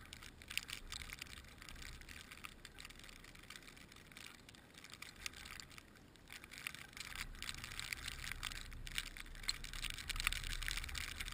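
Wind rumbling on an outdoor camera microphone, with dense, irregular crackling ticks over it. Both grow louder from about seven seconds in.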